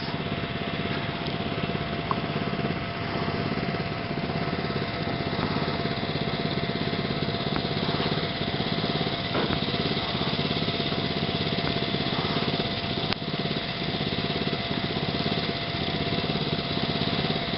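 A steady, even drone like a small engine running, holding the same level throughout.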